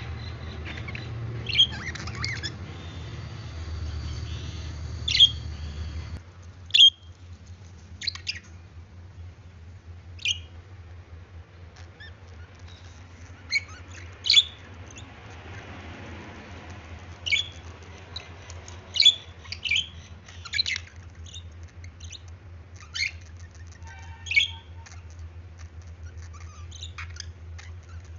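Pet budgerigars (budgies) chirping and squawking in short, sharp, irregularly spaced calls, over a steady low hum.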